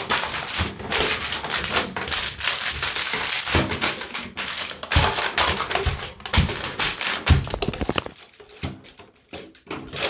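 Empty plastic water bottles crackling and crunching under bare feet, with several dull thumps as feet come down on the wooden floor. The crackling thins out to a few faint clicks about eight seconds in.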